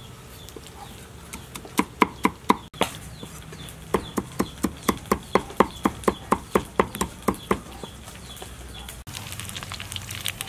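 Cleaver chopping garlic on a round wooden chopping board: four knocks, then a long run of quick, even strokes about four to five a second. Near the end, food sizzles in a wok.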